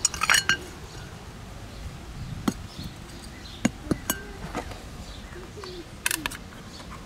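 Light clinks and knocks as a pet bowl and a metal pet-food can are handled and set on the ground, in a few short clusters, the last a quick run of clicks about six seconds in as a finger catches the can's ring-pull.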